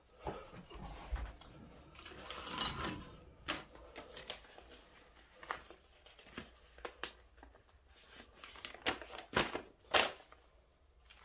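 Scattered clicks, light knocks and rustling from handling the launcher's metal parts, loose bolts and paper packing on a table, with a longer rustle about two seconds in and a sharp click or two near the end as the instruction sheet is picked up.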